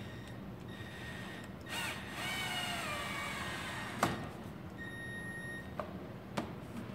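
Cordless drill driving a screw into aluminum fascia: the motor whines for about two seconds with its pitch wavering under load, then a sharp click about four seconds in as the screw seats. A few lighter clicks follow near the end.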